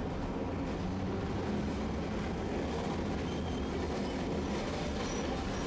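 Tosaden streetcar running along street track, heard from inside the car: a steady low rumble of wheels on rail and a faint hum from the running gear.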